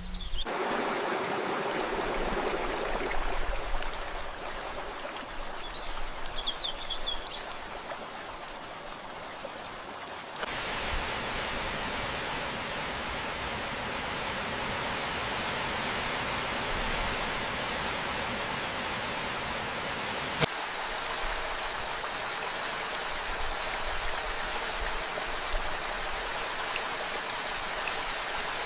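Steady rushing water noise, in three stretches that change abruptly about ten and twenty seconds in. A few faint high chirps come about six to seven seconds in.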